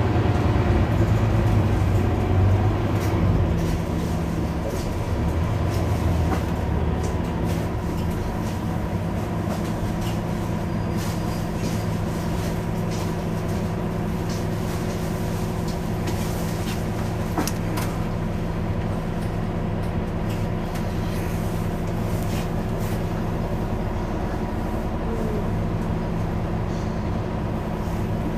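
Mercedes-Benz Citaro C2 Hybrid city bus standing with its diesel engine idling: a steady low hum with a constant tone over it. It is louder for the first few seconds, then settles and holds even.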